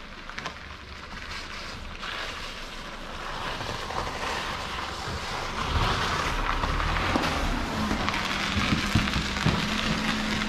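1995 Honda Civic hatchback driving slowly up and into the shed over slush and gravel, its engine and tyres growing louder as it comes close. A steady engine hum holds through the last couple of seconds.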